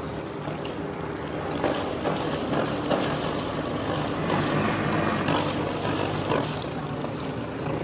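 Motor cruiser's engine running at low speed as the boat passes close by: a steady low hum, a little louder in the middle.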